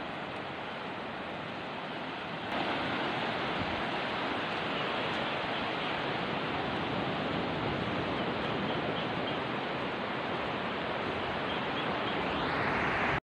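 Ocean surf washing steadily onto a sandy beach, a continuous rushing hiss. It gets suddenly louder about two and a half seconds in, swells again near the end, then cuts off abruptly.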